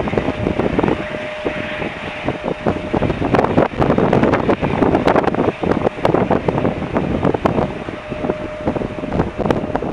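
Gusty wind buffeting the microphone, a loud, uneven rumble with irregular thumps, that covers most other sound. A faint steady tone runs for the first few seconds and again near the end.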